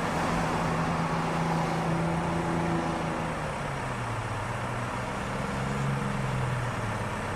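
City bus engine running amid depot traffic noise, its pitch dropping about three and a half seconds in.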